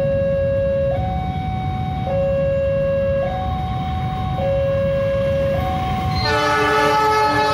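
Railway level-crossing warning alarm sounding a two-note signal, stepping between a lower and a higher tone about once a second. About six seconds in, the horn of the approaching diesel locomotive starts, a loud chord of several notes held on.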